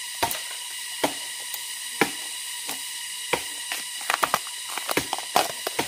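Outer sheaths being peeled off a fresh bamboo shoot by hand: irregular crisp snaps and tearing crackles, coming quicker from about four seconds in.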